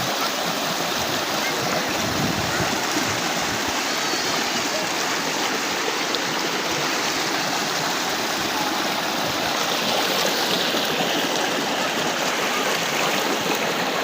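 Flowing river water, a steady, even rush of current.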